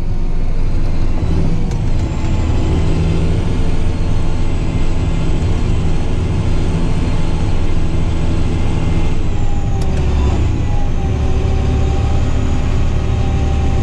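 John Deere 8520 tractor's diesel engine running steadily, its note dipping slightly about ten seconds in.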